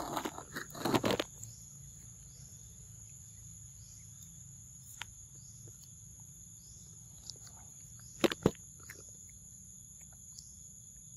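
Steady insect chorus, a continuous high buzz with a short chirp about once a second. Over it, close-up crunches and clicks of a young macaque biting and handling a mango: a cluster of loud crunches in the first second and a half, and two sharp clicks about eight seconds in.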